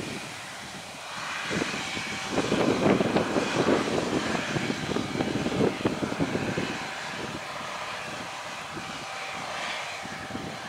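Eight-tyred John Deere four-wheel-drive tractor running steadily under load while it pulls an air seeder bar and cart at sowing, heard from across the paddock as a continuous engine drone with a faint steady whine. It grows louder and rougher from about a second and a half in until about seven seconds, then settles back.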